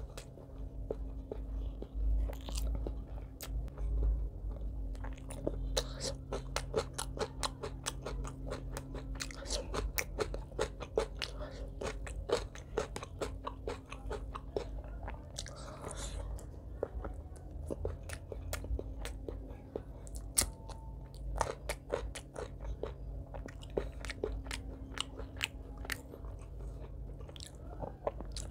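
Close-miked chewing of mouthfuls of chicken liver curry and rice, with many sharp crunching clicks and wet mouth sounds, heaviest in the middle of the stretch.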